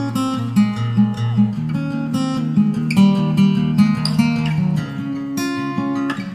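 Background music: strummed acoustic guitar with plucked notes and a regular rhythm.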